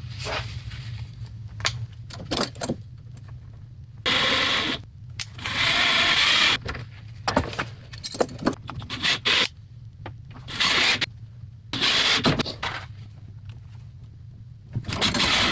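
Cordless drill/driver running in several short bursts of about a second each, driving screws to fasten a hinge plate to a door, with small knocks and clicks of handling between the runs.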